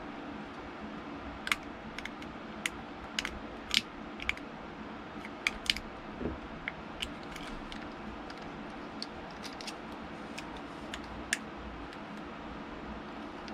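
Irregular small clicks and taps from handling small tools and plastic console parts during a Nintendo Switch Lite screen repair, over a steady background hiss.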